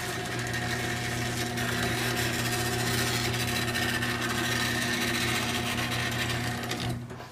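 LiftMaster 3595 chain-drive garage door opener running with its trolley disconnected from the door and its chain slack: a steady motor hum under a buzzing rattle, which comes from the inner trolley vibrating, not the opener. It stops near the end.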